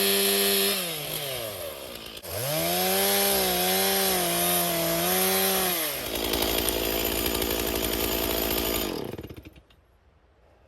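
Stihl chainsaw revving high and cutting, falling off about a second in, then revved and held again until about six seconds in. It runs rougher for a few seconds after that and stops about nine seconds in.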